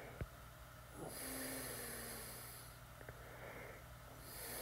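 Faint, slow breathing close to the microphone, two breaths each lasting about a second and a half. A light tap of an Apple Pencil tip on the iPad's glass screen comes near the start, with a few fainter ticks later as it writes.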